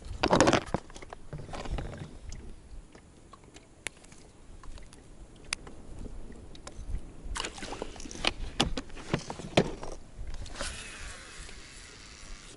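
Small metallic clicks and rustles as a lure and metal snap are handled at the end of a fishing line, with a louder burst of handling noise just after the start. Water laps against an inflatable boat's hull underneath.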